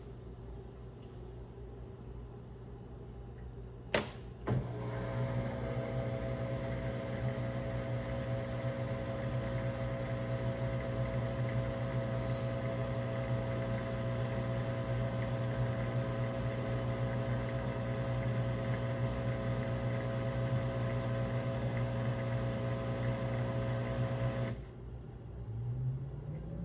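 Samsung WW25B6900AW front-load washer buzzing loudly and steadily, with a low hum and many overtones. It starts with a click about four seconds in, after a softer hum, and cuts off abruptly near the end. The owner says this louder buzz comes when the washer drains with no water left to drain, and has been there since the machine's first month.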